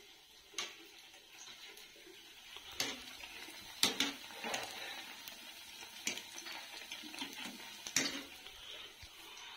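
Corn fritters sizzling in deep, bubbling oil in a steel kadai, a low steady hiss broken by a handful of sharp clicks of the wire-mesh skimmer against the pan.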